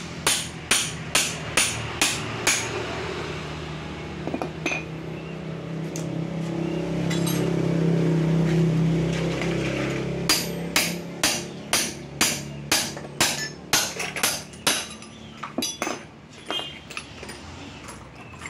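Hammer blows on a steel pipe mould and rod, about two a second, in two runs, the second trailing off into lighter taps. A low steady hum swells and fades between the runs.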